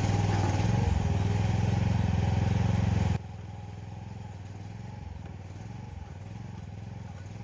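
Engine of compact earthmoving equipment running steadily. About three seconds in it drops sharply in level and carries on quieter.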